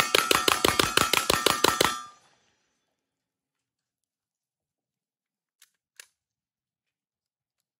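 9mm pistol-caliber carbine fired in a rapid mag dump, about seven shots a second with a ringing tone behind them, the string stopping about two seconds in. Two faint clicks follow near the end.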